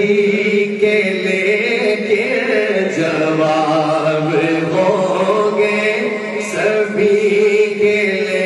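A man's solo voice singing an Urdu naat (devotional poem in praise of the Prophet) into a microphone, in long held notes that bend and slide between pitches.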